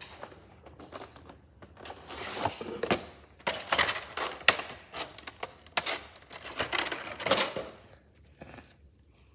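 Cardboard box and a clear plastic packaging tray being handled and opened: irregular crinkling rustles and sharp plastic clicks. It starts about two seconds in and dies away near the end.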